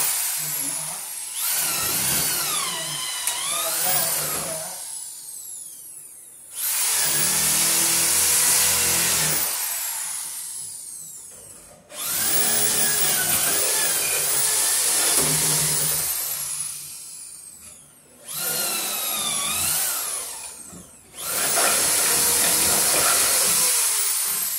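Corded electric drill boring holes through wooden wall studs to run electrical cable, in about five runs of several seconds each. Each run starts sharply, its whine rising and falling as the bit loads in the wood, then winds down.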